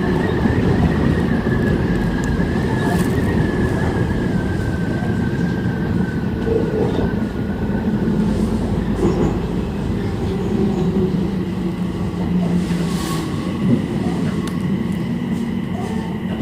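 Odakyu 3000 series electric commuter train running, heard from inside the car: a steady rumble of wheels on rail with a high whine that slowly falls in pitch over the first half.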